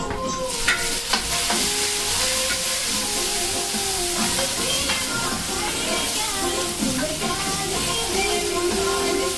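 Potato and radish for thinchwani sizzling in hot oil in a metal kadhai: the sizzle starts about half a second in as chopped ingredients are tipped in from a plate, then holds steady while a ladle stirs and scrapes the pan, with a couple of sharp clinks near the start. Background music plays underneath.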